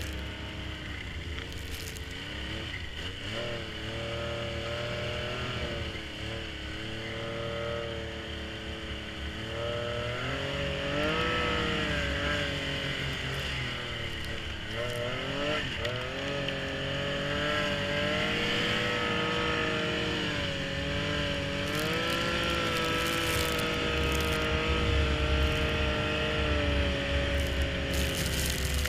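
Snowmobile engine running, its pitch rising and falling over and over as the throttle is worked.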